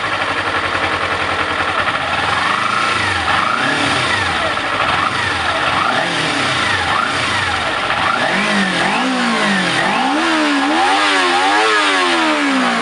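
Kawasaki Ninja 250R's 249cc liquid-cooled parallel-twin engine running through its stock exhaust and being revved again and again, its pitch climbing and dropping. The revs come in quick, regular blips about once a second in the last few seconds.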